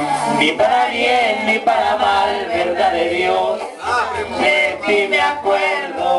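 A man singing into a handheld microphone over a recorded Latin backing track with a steady bass line.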